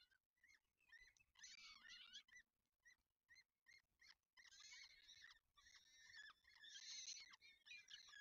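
Peregrine falcon chicks begging: high-pitched cheeping calls in quick bursts, with a long run of calls in the second half that is loudest near the end, as a parent feeds them at the nest.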